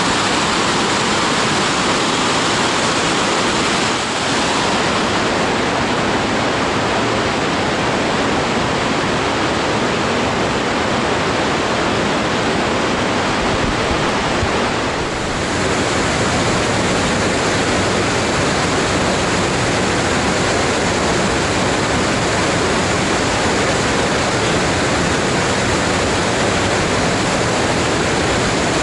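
Steady roar of rushing water from a waterfall and whitewater rapids, dipping briefly twice.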